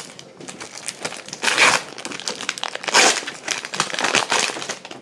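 Foil wrapper of an Upper Deck MVP hockey card pack crinkling and tearing as it is pulled open by hand, in irregular crackles, loudest about one and a half seconds in and again at three seconds.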